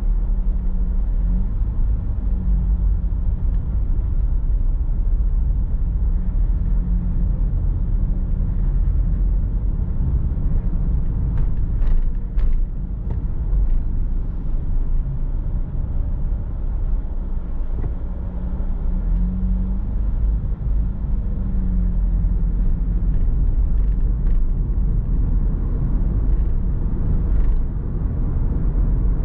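Car being driven, heard from on board: a steady low engine and road rumble. The engine note rises and falls slightly about two-thirds of the way through, and a few faint clicks come near the middle.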